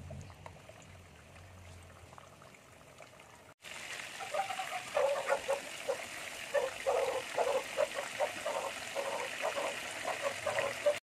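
Breaded pork cutlets deep-frying in a pot of hot oil: bubbling and sizzling with many small irregular pops, much louder after a cut about three and a half seconds in.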